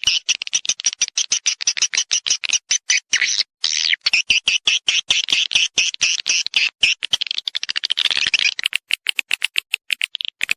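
Swiftlet (burung walet) mating and lure calls: a fast, unbroken train of sharp chattering chirps, about ten a second, with a denser twitter around eight seconds in and thinner, higher clicks near the end. This is the call played in swiftlet houses to draw the birds in to mate and nest.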